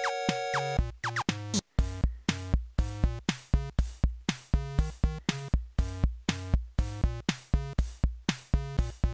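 Background music: a short held chord, then from about two seconds in a steady beat of about two strikes a second.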